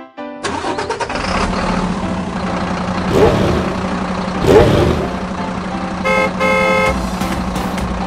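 Dubbed car sound effect: an engine running steadily, swelling louder twice, then a car horn honking twice, one short honk and one longer.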